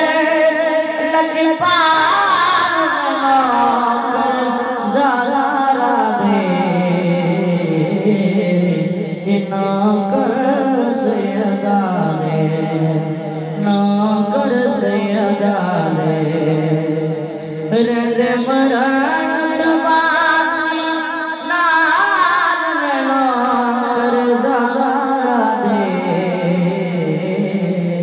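A man singing a naat, a devotional Urdu/Punjabi hymn, solo and unaccompanied into a microphone. He sings in long held, ornamented phrases that glide down in pitch, each followed by a short breath pause.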